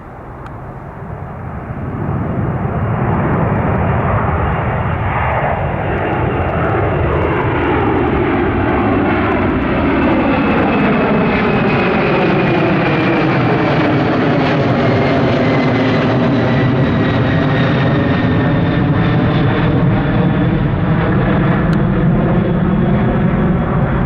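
Boeing 767's twin jet engines at departure power as the airliner passes close by. The noise builds over the first two seconds, then holds loud and steady, with a thin high whine that slowly falls in pitch and a sweeping, phasing rush.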